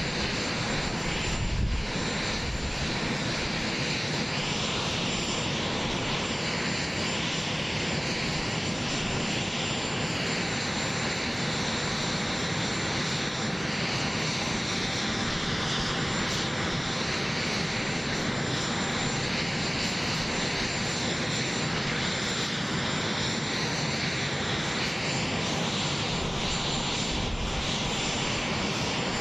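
Steady jet turbine noise from an aircraft on the ramp: an even rushing hiss with a thin, steady high whine and a mid-high tone that slowly wavers in pitch.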